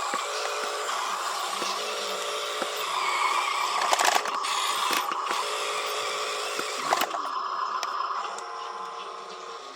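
Small electric motors and gearboxes of a toy RC construction vehicle whining steadily as it runs. The whine grows louder about three seconds in, with a few sharp clicks and knocks, and drops away after about eight seconds.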